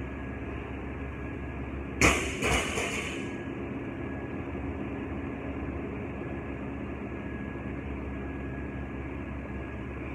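A loaded barbell with bumper plates dropped onto a rubber gym floor about two seconds in: a loud bang, a smaller second hit as it bounces, and a short ringing that fades within about a second. A steady low hum runs underneath.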